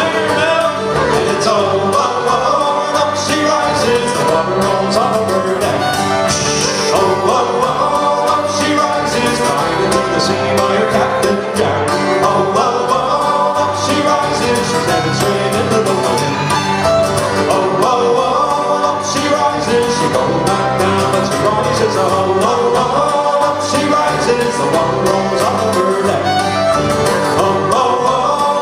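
Folk band playing live: a fiddle bowing over two strummed acoustic guitars and an electric bass guitar at a steady tempo.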